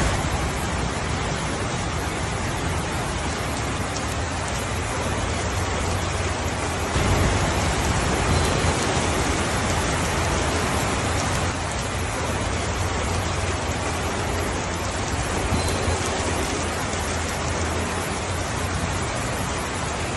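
Steady rainfall, an even dense hiss of many drops with no single sound standing out. It swells slightly for a few seconds about a third of the way in.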